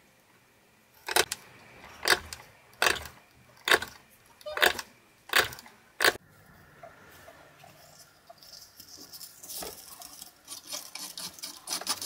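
A Victorinox Swiss Army knife awl being pushed through leather into the wooden board beneath: seven sharp punches, a little under a second apart. In the last few seconds come quieter, quicker scratching and rustling sounds.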